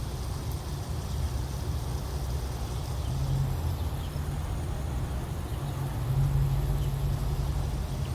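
A low, steady rumble with a faint hum that swells a little around three seconds in and again around six seconds in.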